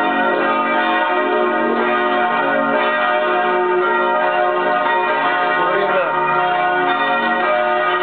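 Church bells ringing without pause, many bell tones sounding together and overlapping, with people's voices faint underneath.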